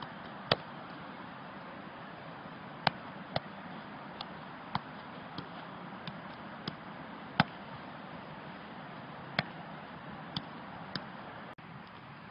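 A football being juggled with the feet: about a dozen sharp, irregularly spaced thuds of boot striking ball over a steady outdoor hiss.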